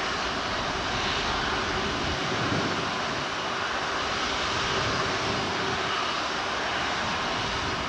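Boeing 757-200's twin Rolls-Royce RB211 turbofans at takeoff thrust, a steady jet rumble and hiss heard from behind as the airliner accelerates away down the runway.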